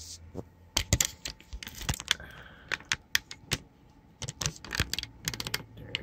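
An irregular run of sharp clicks and light taps of handling as a camera is being set on its mount over the desk.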